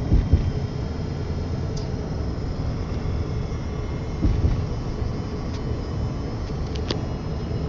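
Road noise heard inside a moving car's cabin: a steady low rumble of tyres and engine on the bridge deck, with a louder thump near the start and another about four seconds in.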